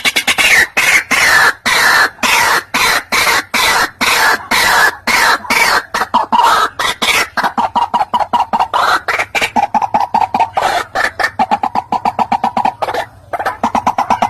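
White-breasted waterhen calling: a loud, rapid run of short harsh notes, several a second. Some phrases drop in pitch and others hold steady, with a brief break near the end.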